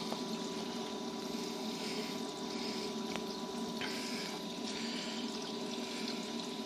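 Saltwater reef aquarium running: the steady hum of its pumps and the wash of circulating water, with a faint constant tone over it.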